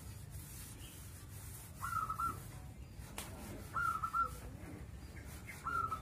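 Caged zebra dove (perkutut) cooing: a short phrase of a few quick coo notes, repeated about every two seconds, three times.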